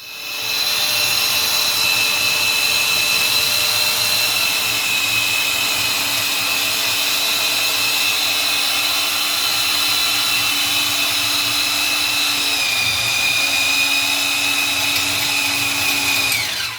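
Power drill driving a water drill that bores a path for a new water service line. It runs steadily at full speed with a high whine, then winds down and stops near the end.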